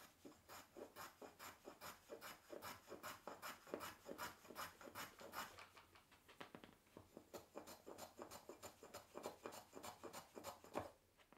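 Small hand plane shaving a small block of wood in quick, repeated short strokes, about three a second, with a light rasping sound.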